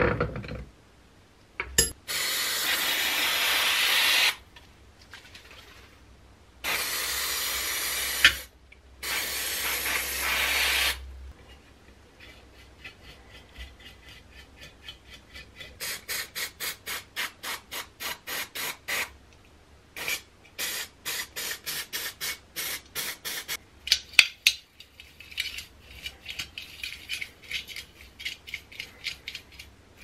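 Aerosol parts cleaner spraying in three long hissing bursts, then a bristle brush scrubbing small thrust bearings and washers in a metal tray with quick, even strokes, several a second.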